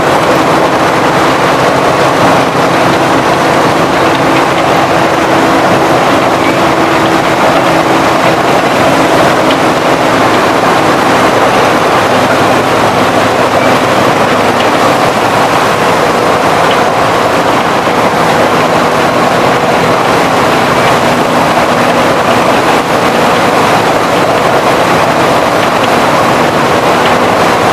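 Sugarcane crushing mill running: a loud, steady din of machinery with a faint hum held underneath.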